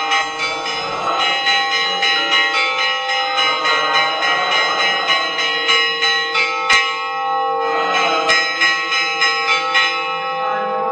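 Several church bells of different pitches ringing together, struck in quick succession over and over, with two sharp knocks a little over halfway through.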